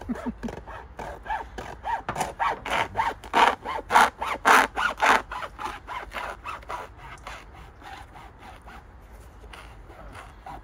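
Hand saw cutting through a white sneaker with quick back-and-forth strokes, about three a second. The strokes are loudest a few seconds in, then get softer and lighter.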